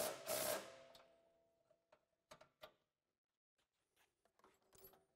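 Two sharp metallic clanks against a steel bracket and frame, which ring on for about a second as they fade, followed by a few light clicks and taps of tools and hardware.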